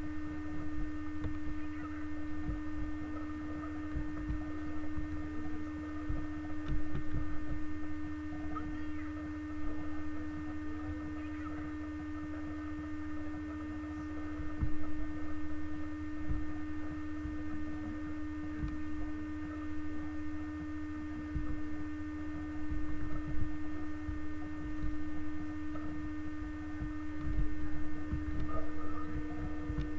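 A steady electrical hum: one strong low tone with fainter higher tones above it, with faint knocks and rustles underneath.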